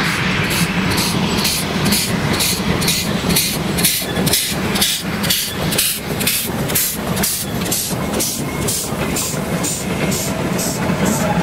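Narrow gauge steam tank locomotive passing with a train of wagons, its exhaust chuffing evenly at about three beats a second. The chuffs fade near the end as the wagons roll by.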